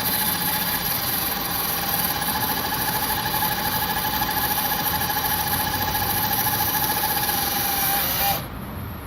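Engine running steadily under a constant high whine; the sound cuts off abruptly about eight seconds in.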